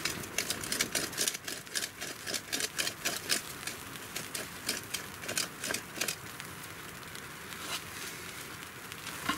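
Bare hands rubbed together briskly: a fast run of dry rubbing strokes for about the first six seconds, then only a few scattered scrapes.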